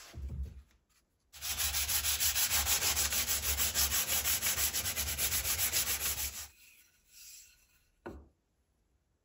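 Wooden hammer handle held in a vise and hand-sanded with a strip of sandpaper pulled quickly back and forth around it, an even rasping at about five strokes a second for some five seconds. A short knock follows near the end.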